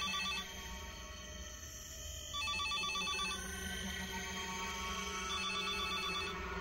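Desk telephone ringing with an electronic trilling ring. Each ring lasts about a second and comes roughly every three seconds: one ends just after the start, then two more follow. A steady low hum runs underneath.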